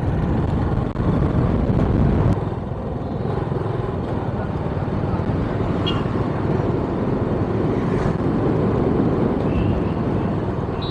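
Motorcycle running steadily on the road while being ridden, a continuous low rumble of engine and road noise.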